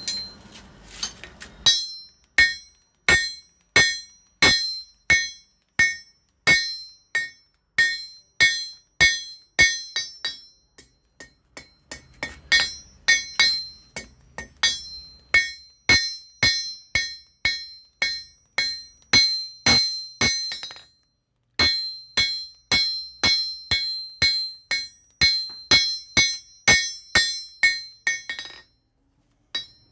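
Blacksmith's hand hammer striking red-hot iron on a steel anvil block in a steady rhythm, about three blows every two seconds, each with a high metallic ring, as the hot metal is forged flat. The hammering stops briefly a few times.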